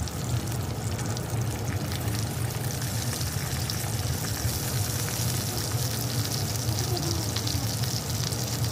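Pork belly sizzling in hot oil in a wok: a steady frying hiss with small crackles, over a low steady hum.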